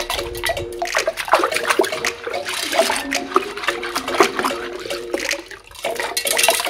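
Mentos and small hard candies dropping by the handful into the water of a toilet bowl, a rapid patter of plops and splashes, with a hand swishing through the water to scoop them up.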